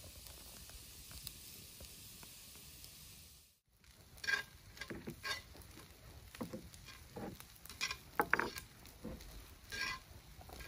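A steady faint hiss, then from about three and a half seconds in, fried rice sizzling in a cast-iron skillet on a camp stove as metal tongs stir and scrape it in irregular strokes, roughly one a second.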